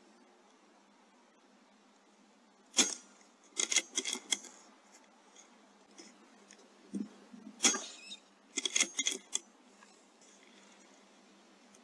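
Two sharp shots from a .22 Airmaks Krait L PCP air rifle, about five seconds apart. Each shot is followed within a second by a quick run of metallic clicks and clinks.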